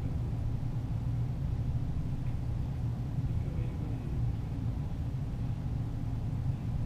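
A steady low rumble with no gunshots.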